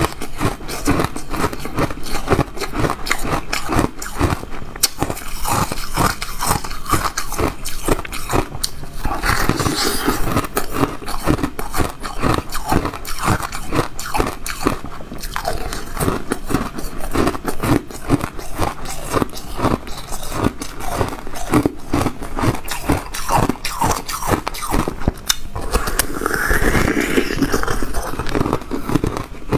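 Frozen milk ice being bitten and chewed, a rapid, continuous run of crunches and crackles.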